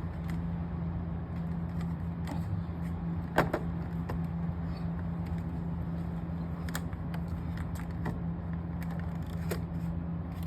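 Steady low hum with a handful of scattered clicks and knocks from handling a landline phone and its cord plugs; the loudest knock comes about three and a half seconds in.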